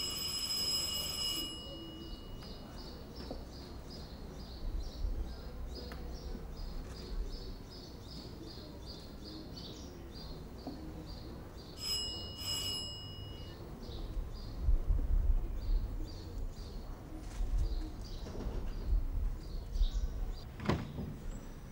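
Small birds chirping repeatedly throughout. An electric door buzzer sounds for about a second and a half at the start and again briefly about twelve seconds in. Low rumbling surges come in the second half, and there is a sharp click shortly before the end.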